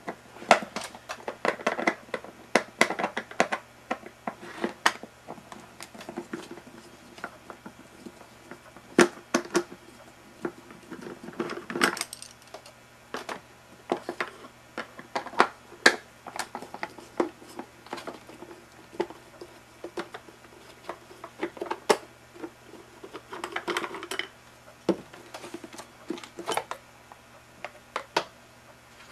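Hard plastic parts of a tub vacuum's motor housing being handled and pulled apart by hand: irregular clicks and knocks of plastic, with short scraping and rubbing sounds.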